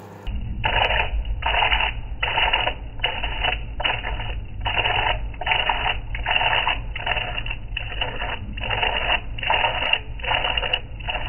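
Wood lathe running with a gouge peeling the skin off a spinning pineapple: a steady low motor hum under a wet scraping that comes in regular pulses, about one and a half a second.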